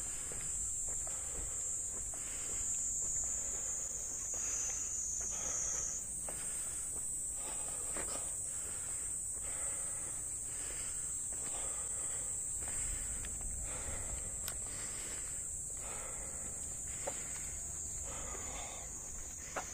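Footsteps walking at a steady pace on an asphalt path, over a steady high-pitched insect drone.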